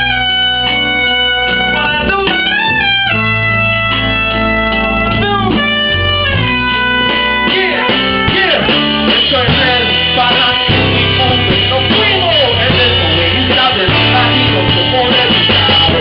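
Live salsa band with brass and violin playing over a bass line: long held notes for the first half, then a busier, slightly louder passage from about halfway through.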